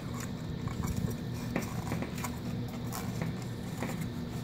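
Scattered light clicks and rubbing as hands wrap a rope around a hot tub pump impeller inside its plastic pump housing, over a steady low hum.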